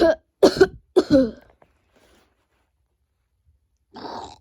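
A person coughing three times in quick succession, short pitched, hiccup-like coughs, then another short breathy cough-like burst near the end.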